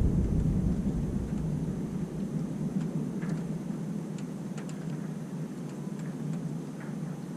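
Thunder rumbling and fading away over the first few seconds, leaving a steady low hiss with a few faint ticks.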